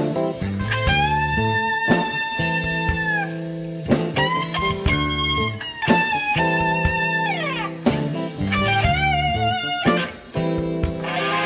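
Live rock band playing. A Stratocaster-style electric guitar plays long, sustained lead notes with vibrato, with a note bent sliding down about seven seconds in, over a steady bass line and regular drum strokes.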